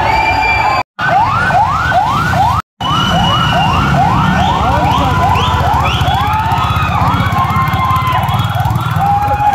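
Emergency-vehicle siren in a fast yelp, rising sweeps repeating about three times a second, over a low crowd rumble. The sound cuts out briefly twice near the start.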